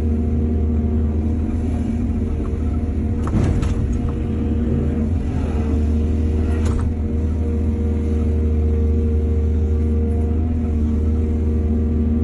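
Excavator's heavy diesel engine running steadily under load, with clattering knocks about three and a half seconds in and again about seven seconds in.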